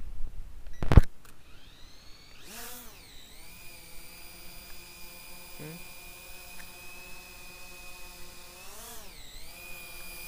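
Aerocraft 1906 GPS quadcopter drone spinning up its motors and lifting off: a whine that rises in pitch about two seconds in and then holds steady while it hovers, dipping and rising again near the end as it climbs. A sharp knock about a second in.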